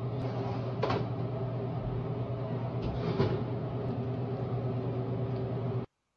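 Steady kitchen hum with a few clinks of a metal ladle and wire whisk against a pot of simmering gravy; the sound cuts off suddenly near the end.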